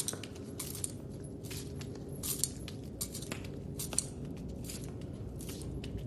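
Handcuff and leg-iron chains clinking and jingling with the steps of a shackled walker: irregular light metallic clinks, several a second, over a low steady hum.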